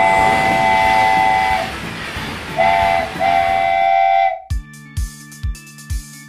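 Steam-train whistle, several notes sounding together over a hiss: one long blast, then a short toot and another long blast. Past the middle, music with a steady beat takes over.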